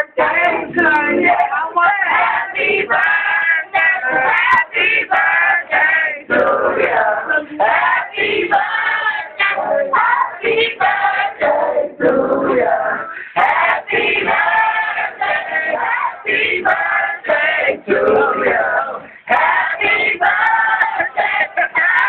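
A group of men and women singing together.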